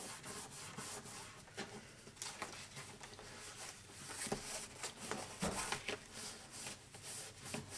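Paper and card stock rustling and scraping faintly as hands fold a card and press it flat along the crease, in a series of short, irregular strokes.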